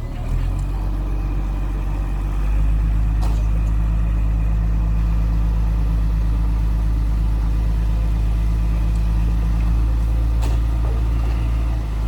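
Heavy earthmoving machine's diesel engine running steadily at a low, even pitch, growing louder about two and a half seconds in. Two brief knocks, about three seconds in and near the end.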